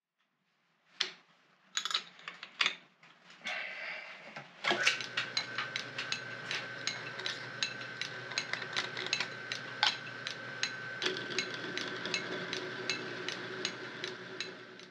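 A few knocks, then a 1921 Dalton Six B4 metal lathe starts up about five seconds in and runs steadily. It gives a high steady whine and an even clicking from its drive belt, about three clicks a second.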